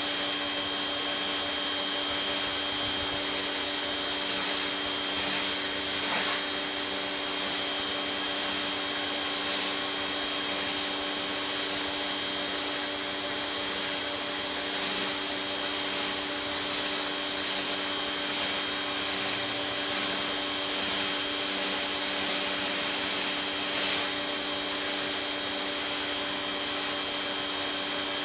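Westinghouse ePX3500 electric pressure washer running steadily, a constant motor-and-pump whine over the hiss of the water spray.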